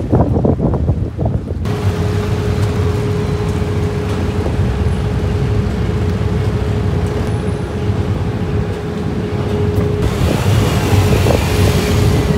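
Wind buffeting the microphone for about the first second and a half. Then vehicles driving off a car ferry, a camper van and cars with their engines running low, over a steady hum.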